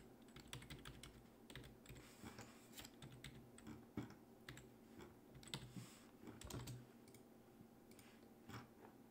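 Faint, irregular computer keyboard keystrokes.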